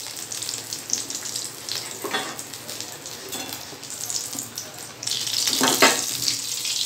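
Besan-battered bread, potato and paneer vadas deep-frying in hot oil in a steel kadhai: a steady sizzle that grows louder about five seconds in. One vada, fried golden brown, is lifted out with a slotted spoon while another keeps frying.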